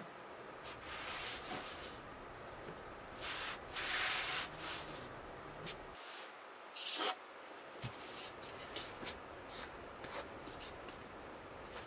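Flour being stirred and rubbed by hand in an aluminium bowl, with soft gritty swishes in bursts, the loudest about four seconds in. Then comes a brief rustle of woven cloth being spread out, and a few light ticks.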